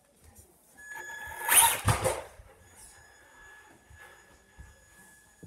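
Traxxas Rustler RC car driving off across a wooden floor: a short burst of electric motor and tyre noise about a second and a half in, then a faint steady high whine.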